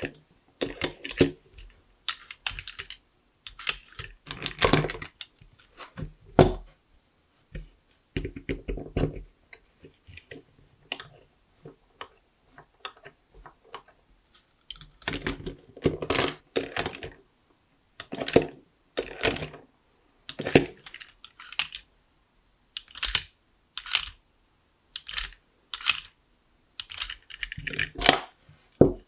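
LEGO bricks and Technic parts being handled, pulled apart and pressed together: irregular clusters of small plastic clicks and rattles with short pauses between.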